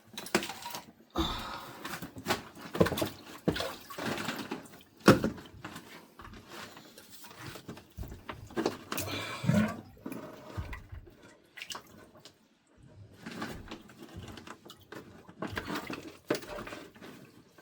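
Plastic pipe being pushed and twisted into a fitting to test its length: irregular knocks and scrapes, with a sharp knock about five seconds in, and some splashing of water.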